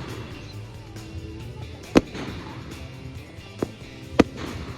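Fireworks exploding in three sharp bangs: one about two seconds in, a fainter one past three and a half seconds, and another just after four. Music plays steadily underneath.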